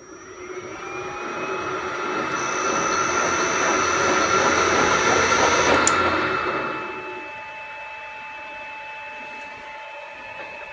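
Lathe spindle driven by a VFD-controlled three-phase motor spinning up with a rising whine, then running steadily with belt and headstock noise. Near six seconds a click comes, and the running noise dies away over about a second as the drive is set to a free stop and lets the motor coast down. A fainter steady whine remains.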